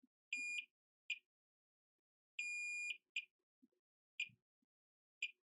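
Digital multimeter beeping on its continuity/diode setting as the probes touch test points on the phone's logic board. It gives several brief chirps and two longer steady beeps, with the last beep starting near the end.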